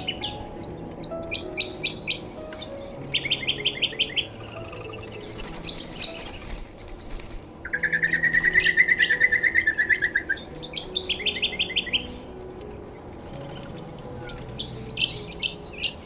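Birds chirping in quick series of short high notes, with one long fast trill from about eight to ten seconds in.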